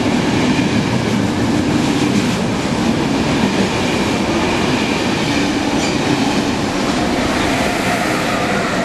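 KTT intercity through train's double-deck coaches passing non-stop at speed, with loud, steady wheel-and-rail noise. Its electric locomotive passes near the end.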